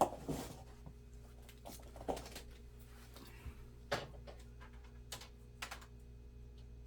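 Scattered sharp clicks and taps of small laptop parts being handled and fitted during reassembly, the loudest right at the start and others about two, four and five seconds in, over a steady low hum.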